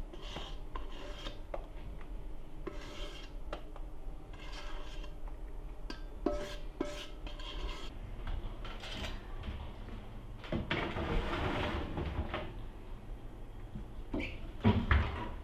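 Kitchen handling noises: a stainless steel mixing bowl scraping and rubbing against a cake tin as the last of the batter is emptied out, then a baking tray handled on the counter, and a knock near the end as the oven door is opened.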